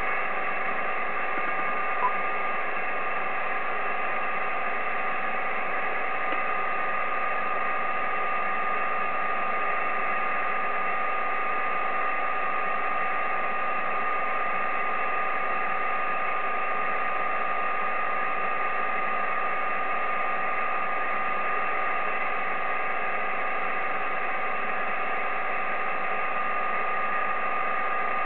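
Steady static hiss from an Icom IC-7300 transceiver's receiver on a quiet 10-metre SSB frequency, with several faint steady tones running through the noise.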